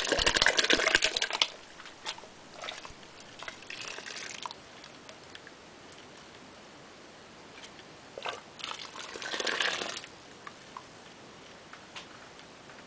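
Thick citrus pulp poured from a bowl into a pot of boiling wort, splashing loudly for about the first second and a half. Softer scattered splashes and scrapes follow, with a second louder stretch about eight to ten seconds in.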